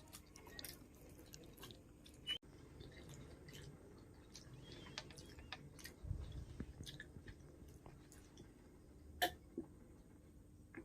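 A person chewing food close to the microphone, with scattered small mouth clicks and one sharper click about nine seconds in.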